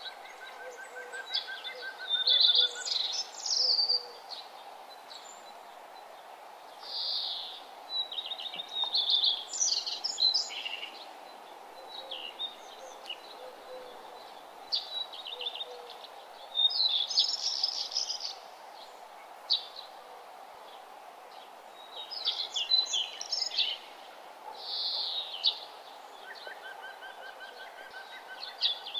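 Birds singing and chirping in short bursts of song every few seconds, over a steady background hiss.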